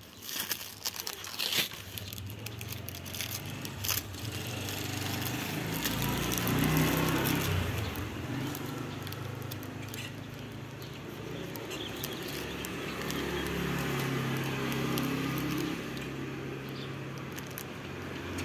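Clear packing tape being picked and peeled off a non-woven fabric bag, crackling and crinkling in the first few seconds. After that a motor vehicle's engine runs steadily nearby, louder through the middle and covering the handling sounds.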